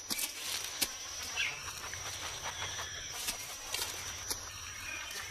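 Faint natural forest-floor sound: soft rustles and a scattering of small clicks in dry leaf litter, over a thin, steady, high-pitched tone.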